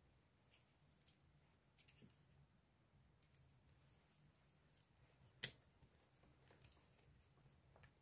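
A handful of short, sparse metal clicks from a key working in a brass Miller six-lever padlock, the loudest about five and a half seconds in.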